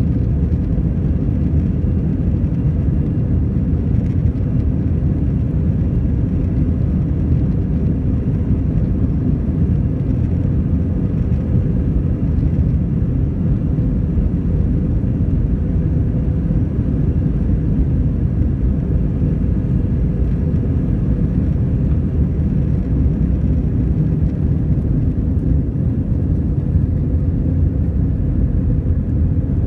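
Cabin noise of an Airbus A320-212 during its takeoff roll and lift-off: the CFM56 engines are at takeoff thrust, heard through the cabin as a steady, loud low rumble.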